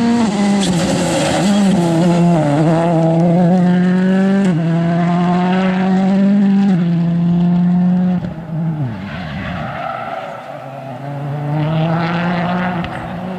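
Ford Fiesta RS WRC rally car's turbocharged 1.6-litre four-cylinder engine held at high revs, with brief steps in pitch at gear changes. About eight and a half seconds in the revs fall away as the driver lifts off, then build again near the end.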